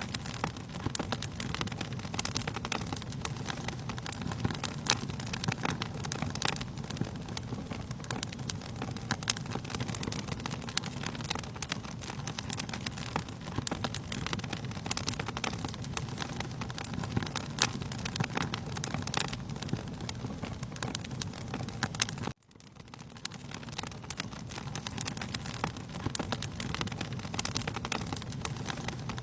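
Wood fire in a fireplace crackling, with many sharp pops over a low, steady rumble of the flames. The sound cuts out for a moment about three-quarters of the way through and fades back in.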